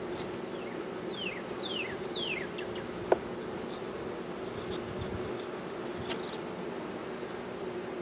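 Honey bees buzzing around an open hive, a steady hum. A few quick falling whistles from a bird sound over it near the start, and there is one sharp tap about three seconds in.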